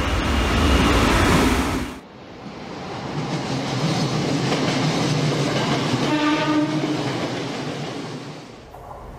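Japanese electric commuter trains running through stations, wheels clattering on the rails; about six seconds in, one short horn blast of under a second from an approaching yellow-green-striped JR commuter train.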